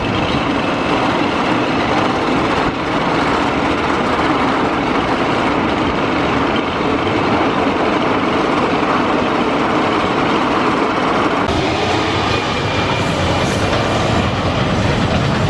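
Roller coaster train running along steel track, a loud, steady rumble. The sound changes character about three-quarters of the way through.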